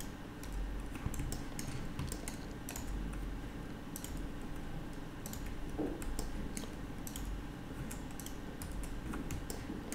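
Irregular clicking of computer keyboard keys and a mouse, a few clicks a second, over a low steady hum.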